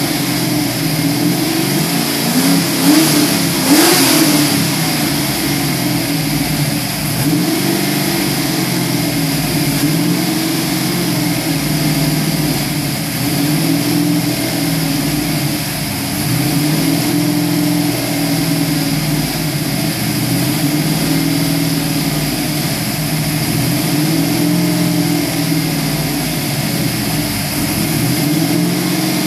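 Ford 351 SVO small-block V8 running on its first start-up, its engine speed slowly rising and falling every couple of seconds. There is a brief louder rise about three to four seconds in.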